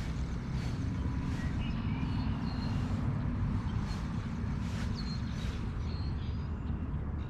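Steady low outdoor rumble, with birds chirping briefly several times and a faint tick about every 0.7 seconds.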